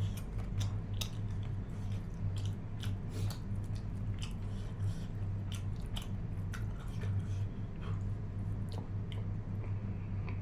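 A person chewing and biting mutton close to the microphone, with irregular wet, clicking mouth sounds. A steady low electrical hum runs underneath.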